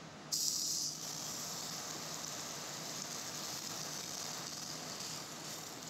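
Seasoned bone-in pork chop laid into a smoking-hot pan of clarified butter, sizzling. A sudden loud hiss comes about a third of a second in and settles after about half a second into a steady sizzle. The smoking pan shows it is hot enough to sear.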